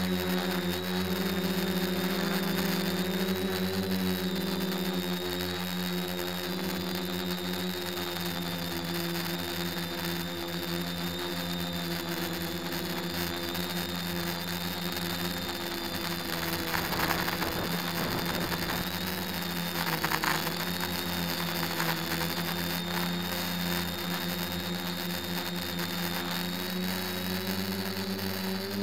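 Quadcopter's electric motors and propellers whirring steadily, heard from the aircraft itself, their pitch drifting slightly as it manoeuvres. A couple of brief surges of rushing noise come a little past the middle.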